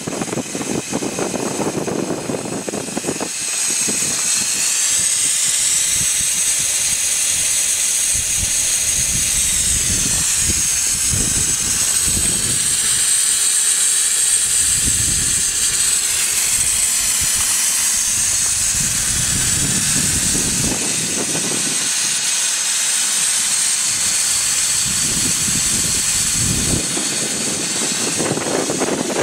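Steady steam hiss from the SMC1 'Coffee Pot' steam motor coach standing at rest, with steam escaping beneath its cylinder and valve gear. The hiss grows louder about three and a half seconds in.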